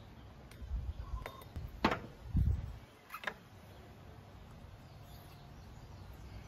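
Metal parts of a Honda PCX 150 variator being fitted by hand: a few sharp metallic clicks and a dull knock in the first three and a half seconds as the nut goes onto the crankshaft and the pulley face is pushed into place.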